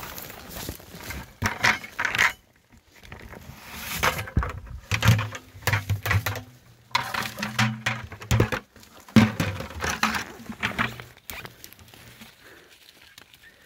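Rustling and crackling of wet leaves, twigs and forest undergrowth in irregular bursts, as someone pushes through it on foot, with a low steady hum for several seconds in the middle.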